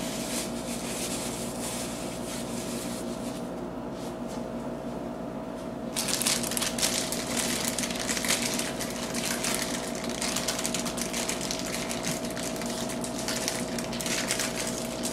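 Plastic bag of marshmallows crinkling and rustling as it is handled and emptied into a bowl, getting much busier about six seconds in. A steady low hum runs underneath.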